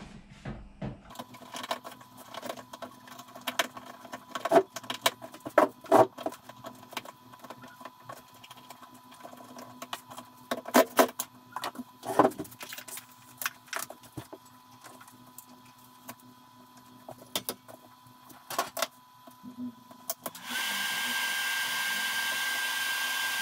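Irregular clicks and knocks of hands working with leads and tools on a workbench. About twenty seconds in, a steady fan noise with a high whine starts: the cooling fan of the Svarog REAL ARC-315 welding inverter running once the machine is switched on at the mains.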